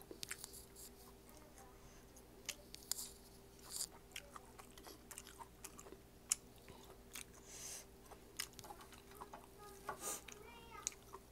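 Close-up mouth sounds of someone chewing fried food, with small crunches and wet clicks at irregular moments.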